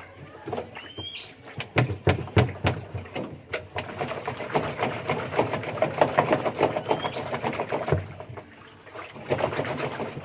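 Panasonic 8 kg washing machine drum being rocked back and forth by hand, knocking and then rattling quickly in bursts as it shifts on its shaft, to free a drum that has stiffened on the shaft with years of use. A short rising chirp sounds about a second in.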